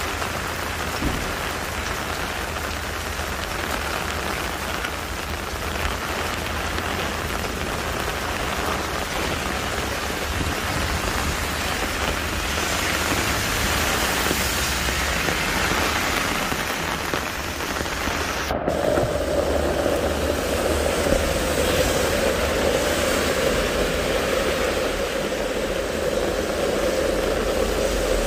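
Steady rain falling, an even hiss of drops. About two-thirds of the way through, the sound cuts abruptly and a steady hum joins the rain.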